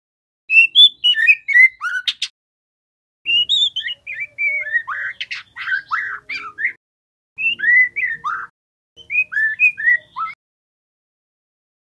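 Juvenile white-rumped shama singing: fast runs of varied whistled and chattering notes in four short phrases with brief pauses between. It falls silent a little before the end.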